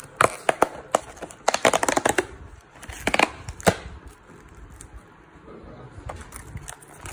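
Paperboard cookie box being torn open, a quick run of sharp paper tearing and crackling over the first few seconds, then a few faint ticks as the flap is folded back over the plastic tray inside.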